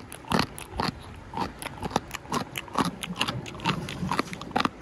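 Mother-of-pearl shells strung on a woven bag's strap clacking against each other as the bag swings, in short sharp clicks about three or four a second, in an uneven rhythm.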